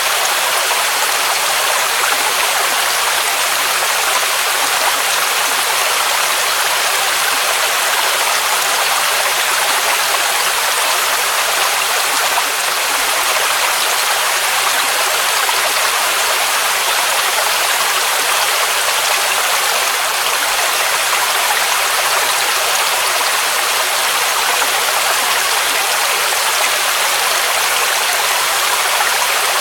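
Waterfall on a mountain cascade: water rushing in a steady, unbroken hiss that is strongest in the high and middle range and thin at the bottom.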